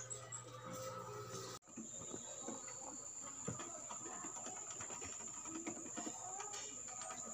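A rabbit crunching dry pellets: a rapid run of short, crisp chewing clicks. A steady high-pitched whine runs behind it.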